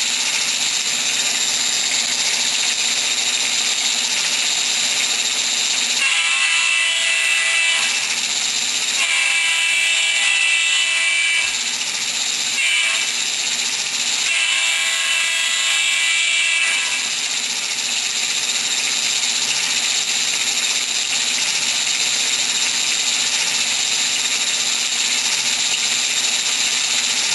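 Phoenix BigSound PB9 model-train sound board playing through its small speaker: a steady running-locomotive sound, with the locomotive's whistle sounding the grade-crossing signal over it, two long blasts, a short one and a long one.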